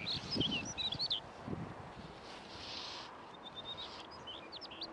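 A songbird singing two phrases, each a quick run of evenly repeated high notes followed by a jumble of swooping whistles. Low rustling is heard during the first second and a half.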